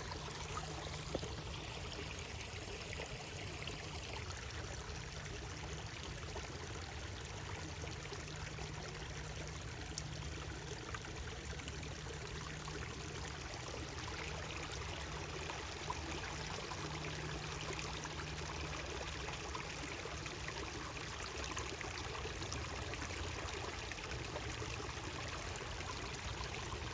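Flowing stream water, a steady, unbroken rush of running and splashing water.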